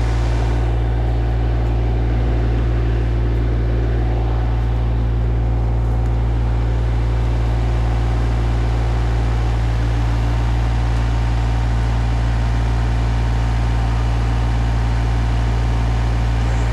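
RK24 compact tractor's engine running steadily at a constant speed, close to the microphone.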